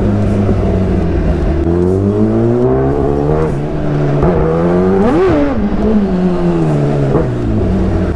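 Kawasaki ZX-10R's inline-four engine pulling under acceleration, its note rising for a few seconds. About five seconds in it gives a quick sharp rev, then the note falls away as the bike slows.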